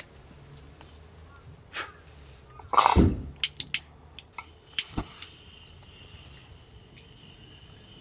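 Scattered clicks and knocks of camp cookware and food being handled for cooking, with one louder thump about three seconds in and a quick run of clicks just after.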